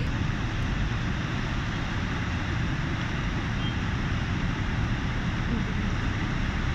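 Steady rushing noise of floodwater flowing through a street, with wind rumbling on a phone's microphone.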